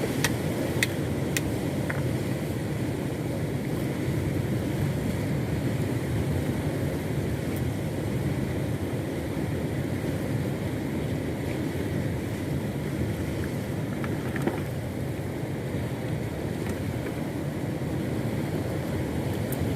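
Steady drone of a boat's outboard motor running under way, with a few light clicks in the first two seconds.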